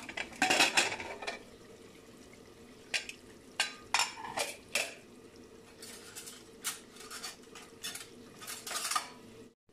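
Metal pressure cooker lid twisted open and lifted off with a loud scraping clatter about half a second in, followed by scattered light metallic clinks and knocks of the lid and utensils.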